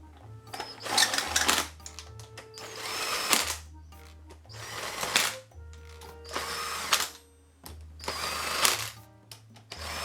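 Background music with a steady bass line, broken about every two seconds by a short whirring burst like a small power tool.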